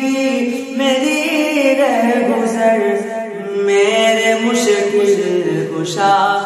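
Male voice singing a naat unaccompanied, holding long drawn-out notes that slowly bend up and down in pitch.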